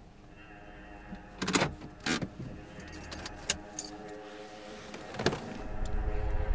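A few sharp clicks and rattles from inside a parked car, then the driver's door unlatching and opening about five seconds in, over a low steady hum.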